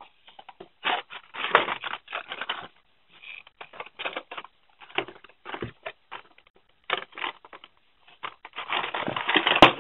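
Blister-carded die-cast toy cars, cardboard backing cards with plastic bubbles, being shuffled and pulled out of a cardboard shipping box: irregular rustling, scraping and crackling of card and plastic against each other and the box walls. The sound thickens into a longer rustle near the end and finishes with a sharp click.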